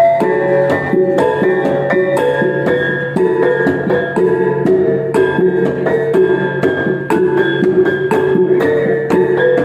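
Iban taboh played on brass gongs: small tuned gongs struck in a quick, running melody of ringing notes over a steady low gong tone.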